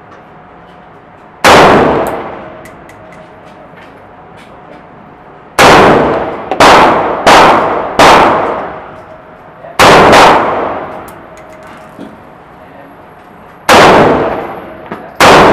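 AR-15 rifle fired in slow, single shots, about nine in all: a group of four in quick succession, a close pair, then two more near the end. Each shot is very loud and followed by a long echo from the indoor range.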